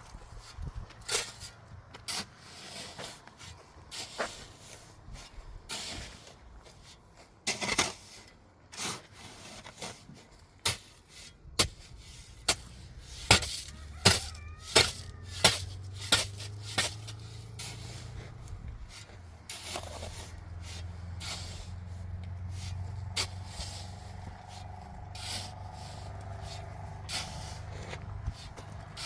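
Irregular sharp knocks and clatter of hard objects being handled, with a quick run of about eight strikes, roughly two a second, around the middle, over a low steady hum in the second half.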